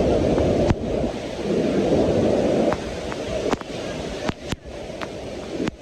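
Roar of a large waterfall heard up close, a dense rumbling rush, with spray and wind battering the microphone and a few sharp clicks and brief dropouts.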